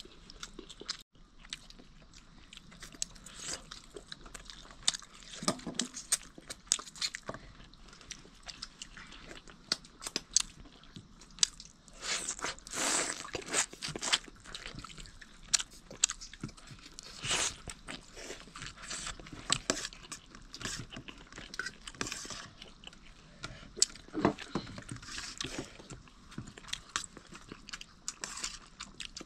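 People eating chicken curry and rice: close, irregular chewing and crunching throughout.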